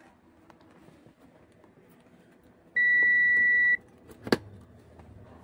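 A single electronic beep, one steady high tone held for about a second, followed about half a second later by a sharp click.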